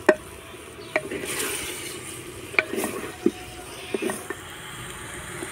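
Spices and food sizzling in a hot clay cooking pot, with several sharp knocks of a bowl and utensil against the pot.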